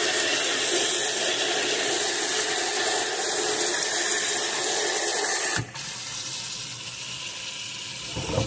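Water from a kitchen faucet's spray head hissing and splashing into the plastic basket of a countertop ice maker. About two-thirds of the way through it drops suddenly to a quieter, steady hiss.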